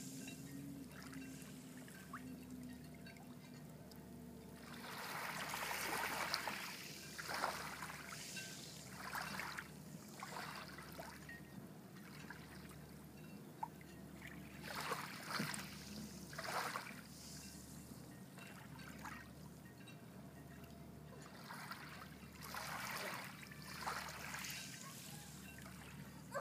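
Shallow seawater swishing, sloshing and trickling as a child wades and sweeps a hand net through it, in a series of separate swishes several seconds apart.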